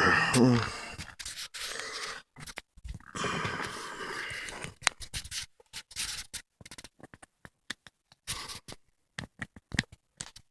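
Handling noise: irregular scraping and rustling with scattered clicks and short pauses, as things are moved about by hand.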